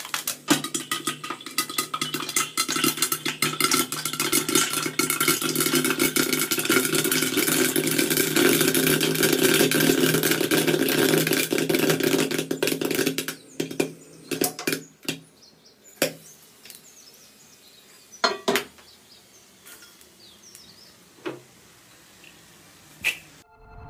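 Popcorn kernels popping in hot oil in a wok: a dense crackle of pops over a sizzle, then only scattered single pops a second or more apart once the popping is nearly done.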